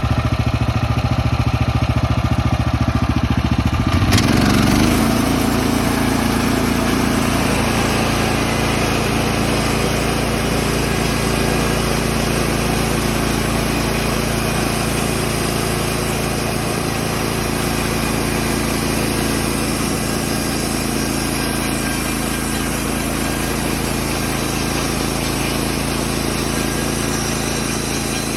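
Woodland Mills HM130 Max bandsaw mill's gasoline engine idling, then throttled up about four seconds in and running steadily at high speed while the band blade cuts a thin board from a log.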